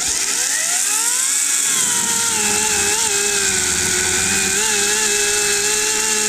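Greenworks DigiPro battery chainsaw spinning up with a rising whine, then running steadily as its chain cuts into a log, the pitch dipping briefly twice as the chain bites.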